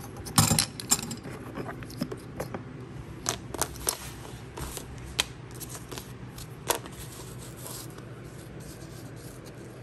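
Wooden knife-handle blocks and scales clacking and scraping as they are picked through and set down on a workbench: a cluster of knocks about half a second in, then scattered single clicks.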